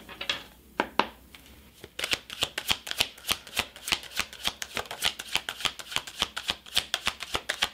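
A deck of oracle cards being shuffled by hand, the cards knocking together in quick clicks: a couple of separate ones at first, then from about two seconds in a fast, steady run of about six a second.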